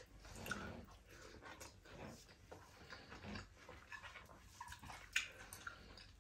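Faint soft clicks and squishes of fingers mixing rice with a mashed chili dish on a plate and eating by hand, with a sharper click about five seconds in.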